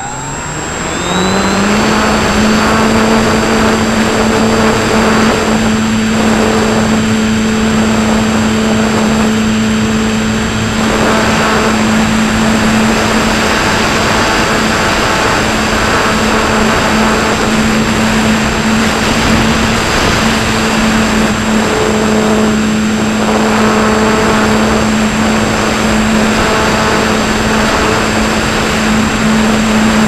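Electric motor and propeller of a Pelikan Gama 2100 RC electric motor glider, heard from a camera on the airframe. The motor winds up in pitch over the first second or so, then runs at a steady drone under the rush of airflow, with a thin high whine above it.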